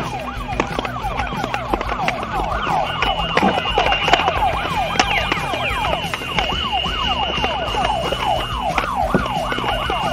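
Electronic siren-like warbling: several overlapping wails sweeping quickly up and down in pitch, several times a second, without a break. A steady high beep-like tone joins about three seconds in, stops briefly near the end, then returns.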